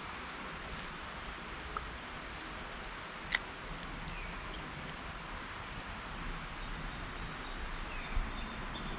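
Steady outdoor background noise with a few faint short chirps, broken by one sharp click a little over three seconds in and a smaller tick just before two seconds.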